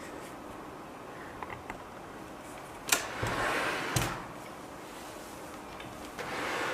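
Quiet room tone broken by two sharp clicks about a second apart, with rustling between them: hands handling parts and cables of a 3D printer during assembly.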